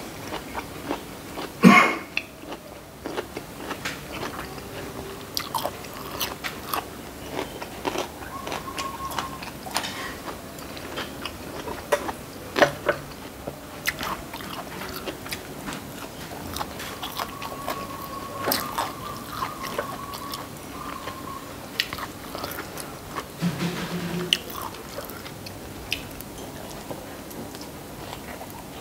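Close-up eating sounds: chewing and biting on hand-eaten rice, fish and vegetables, with crunchy bites and a loud snap about two seconds in.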